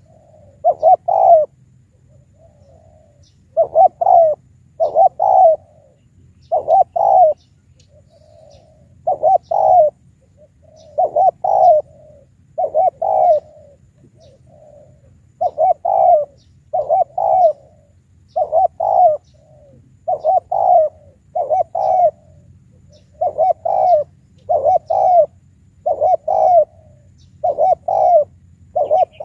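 Spotted dove cooing over and over: short groups of two or three coo notes, repeating every second or two.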